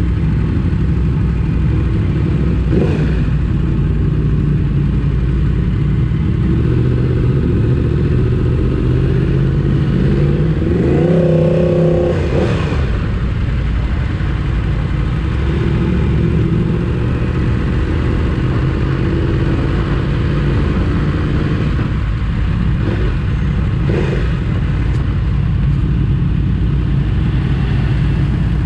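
Motorcycle engine running under way. About ten seconds in the revs climb in a rising pitch for roughly two seconds, then drop away.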